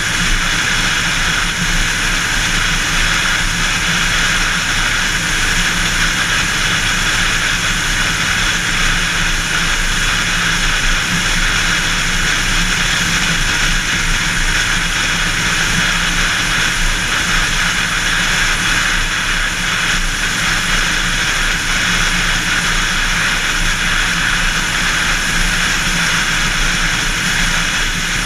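Steady rush of tyre and wind noise from a car cruising at highway speed, with a low rumble beneath.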